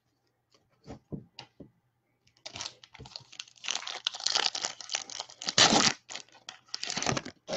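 Foil wrapper of a trading card pack being torn open and crinkled, in crackling stretches that are loudest just before the six-second mark and again about a second later. A few light clicks come about a second in.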